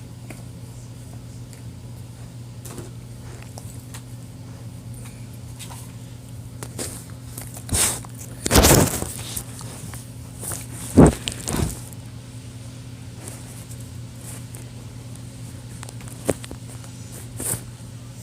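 Handling noises while a phone charger is plugged in: scattered knocks and rustles, the loudest about eight to twelve seconds in, over a steady low hum.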